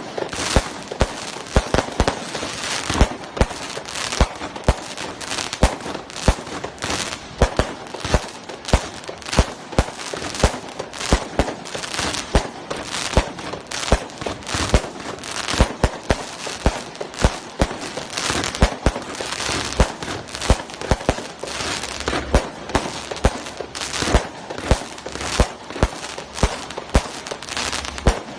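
200-shot, 20 mm compound firework cake firing shot after shot in rapid succession: about two to three sharp bangs a second, with a continuous crackling hiss between them.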